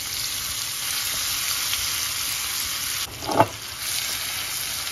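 Ground chicharrón with chile, tomato and onion sizzling steadily in hot oil in a frying pan as it is tipped in and stirred with a silicone spatula. The sizzle dips briefly about three seconds in, followed by one short knock.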